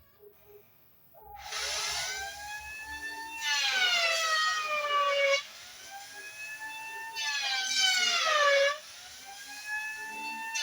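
Handheld electric planer starting about a second in, then cutting two passes along a timber beam. On each pass its whine gets louder and drops in pitch as the motor slows under load, then climbs back when the cut ends.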